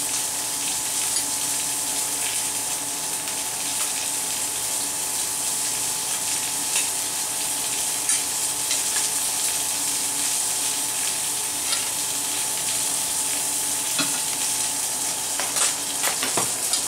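Breaded pollock pieces sizzling steadily in hot oil in a frying pan, with a few light clicks near the end.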